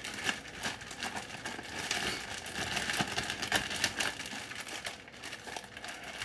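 Zipper plastic storage bag crinkling and rustling as it is shaken by hand, with flour and a piece of stuffed chicken inside being coated.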